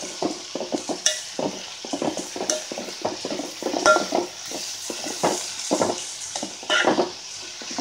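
Amaranth stalks and onions frying in oil in a metal pot, sizzling steadily, while a metal ladle stirs them, scraping the pot in quick, irregular strokes.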